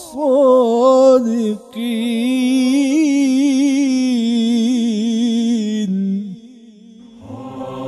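A single voice recites a Quranic verse in melodic tajweed style, drawing out the closing word 'as-sadiqin' in one long wavering held note. The note ends about six seconds in. About a second later a lower, fuller chant-like sound starts.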